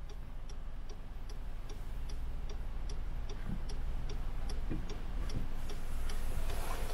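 A car's indicator relay ticking steadily, about three ticks a second, inside the cabin over a low engine hum that grows louder toward the end.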